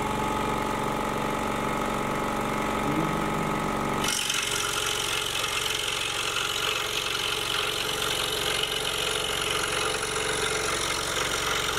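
Excalibur scroll saw running with a steady motor hum, its blade stroking up and down. About four seconds in, the blade starts cutting into the basswood blank and a steady rasping hiss of sawing joins the hum.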